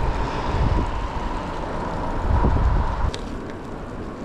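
Wind buffeting the microphone of a handlebar-mounted camera on a moving bicycle, a gusty low rumble with road noise. About three seconds in it drops abruptly to a quieter, steady background.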